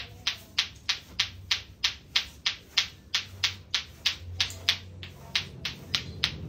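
Clock-ticking sound effect: crisp, evenly spaced ticks, about three a second.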